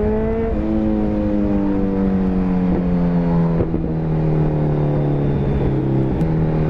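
Kawasaki Ninja 1000's inline-four engine under way: the revs climb, drop abruptly with an upshift about half a second in, then sink slowly as the bike eases off. A small click near the end.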